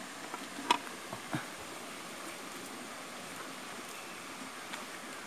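Steady rush of a stream, with a few faint short clicks in the first second and a half.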